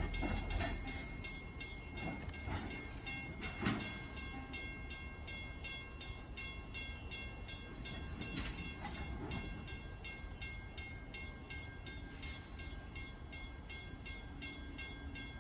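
Railroad crossing bell ringing steadily at about two to three strikes a second over the low rumble of a freight train at the crossing.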